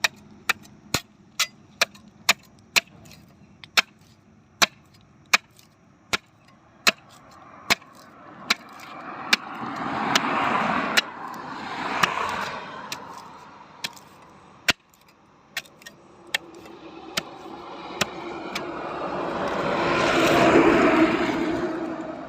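Sharp taps and cuts of a blade peeling bark from a desi kikar (babul) trunk, about one to two a second. Road traffic swells up and fades twice, the louder pass near the end.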